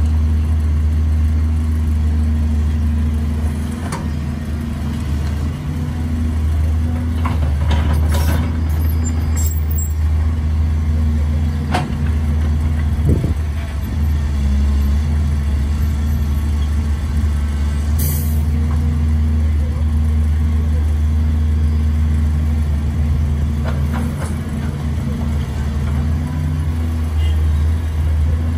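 CAT 320C hydraulic excavator's diesel engine running steadily under load while it digs soil and swings it into a dump truck, the note easing a little twice. A few short knocks come through, and a short hiss about eighteen seconds in.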